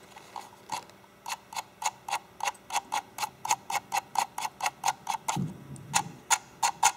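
Scroll wheel of a computer mouse being rolled by a finger, clicking through its notched detents at about four clicks a second, a little faster near the end. The clicks come from a small spring inside riding the notches in the wheel, which keeps it from spinning freely.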